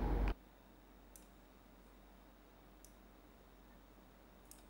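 Background noise cuts off abruptly just after the start, leaving quiet room tone with three faint, sharp computer mouse clicks about a second and a half apart.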